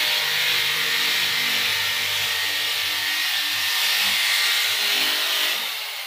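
A power tool running steadily, a continuous whirring noise that eases off near the end.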